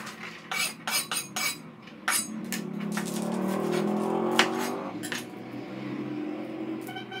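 Kitchen knife and dishes clinking and knocking against a plastic cutting board and plate during food preparation: a run of sharp clinks in the first two seconds, then a longer, duller handling noise with one sharp knock about four and a half seconds in.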